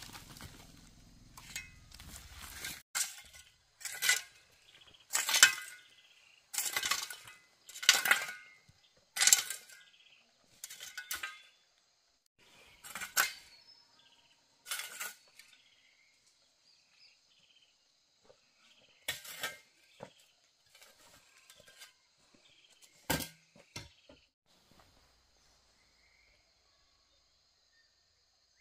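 Repeated clinking strikes of a metal hand tool, about one every second and a half at first, then more spaced out and stopping a few seconds before the end.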